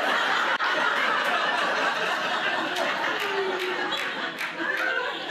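Comedy-club audience laughing together, a steady wash of laughter that eases off a little toward the end, with a few scattered claps.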